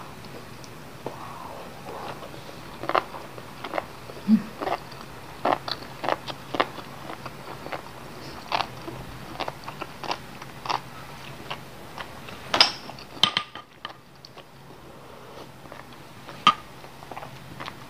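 Close-up eating sounds: a person chewing mouthfuls of noodle soup, with irregular sharp clicks and smacks throughout.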